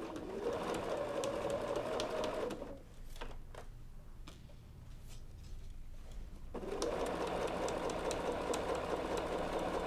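Electric sewing machine stitching a binding through quilted layers: it runs steadily for about three seconds, stops for nearly four seconds with a few light clicks, then starts and runs steadily again.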